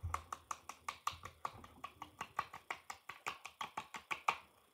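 Fingertips rapidly patting the face, a quick irregular run of light taps at several a second that stops shortly before the end.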